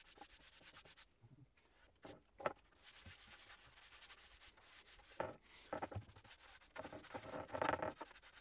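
Paintbrush spreading finishing oil across a sanded hardwood tabletop: faint scratchy brushing strokes, with a few louder strokes in the middle and a busier run of strokes near the end.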